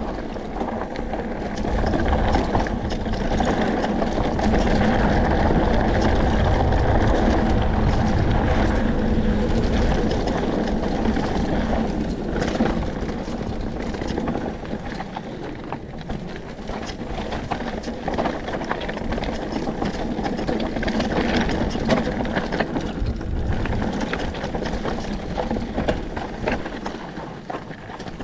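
Mountain bike descending loose, rocky dirt trail: tyres crunching over gravel and stones, with many small clicks and knocks from the bike rattling, under steady wind rush on the camera microphone. Loudest a few seconds in, easing a little after about twelve seconds.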